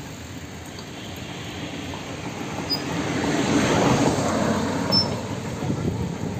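A car driving past close by: its road noise swells to a peak about four seconds in and then fades.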